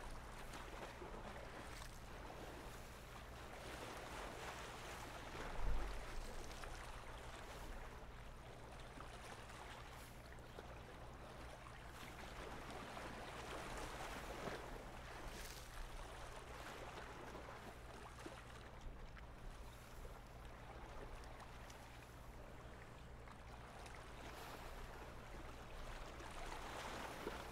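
Faint, steady lapping of lake water along a rocky shore with a low hum beneath it, and a single low thump about six seconds in.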